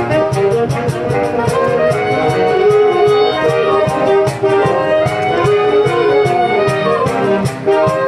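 Saxophone ensemble playing a Latin piece: held saxophone chords and melody over a steady cajón beat of several strikes a second.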